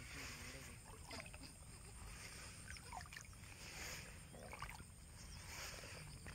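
Soft swishes of river water being stirred in slow, regular strokes, about one every one and a half to two seconds.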